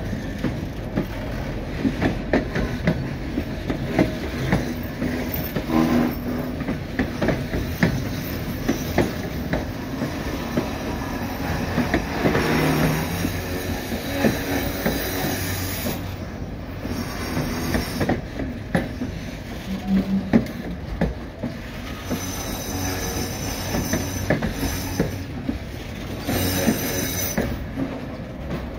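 Narrow-gauge passenger coaches of the White Pass & Yukon Route rolling slowly past close by: a steady rumble of steel wheels on rail with many sharp clacks and knocks, and a couple of stretches of high wheel squeal.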